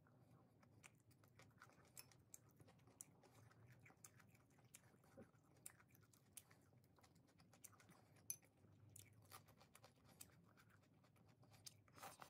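Near silence: faint room tone with scattered small clicks.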